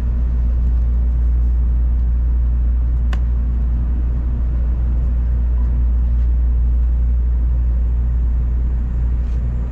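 Steady low rumble of a Tokaido Shinkansen N700-series train running, heard inside the passenger cabin, with one sharp click about three seconds in.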